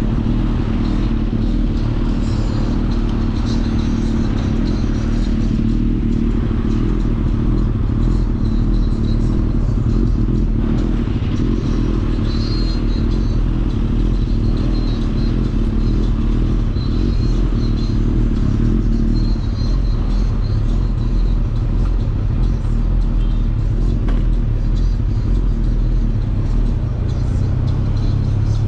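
Superbike engine idling steadily, a low even running note with no revving.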